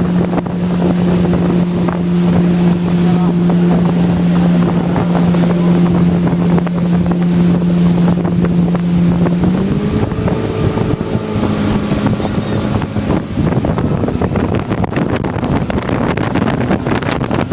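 Motorboat engine running at a steady speed while the boat moves, its pitch rising a little about ten seconds in and then sinking under loud wind noise on the microphone and rushing water.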